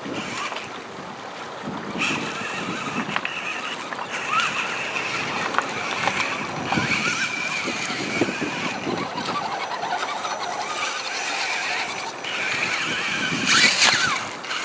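Electric motor and gears of a radio-controlled rock crawler truck whining steadily as it drives over rocks in a shallow river, with water noise underneath. Near the end a crawler splashes loudly through the water.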